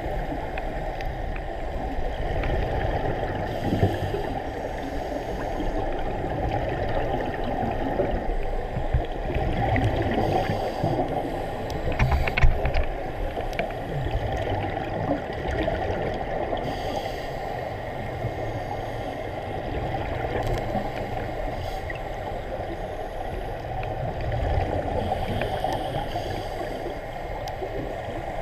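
Muffled underwater gurgling and rushing of scuba divers' exhaled regulator bubbles, with a few sharp clicks about twelve seconds in.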